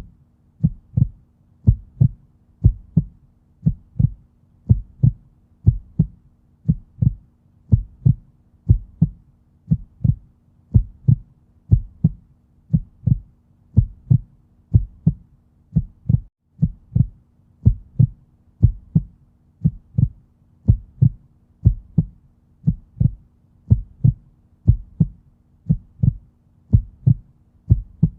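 Heartbeat: a steady lub-dub, each beat a close pair of low thumps, repeating evenly at a little over one beat a second, over a faint low hum.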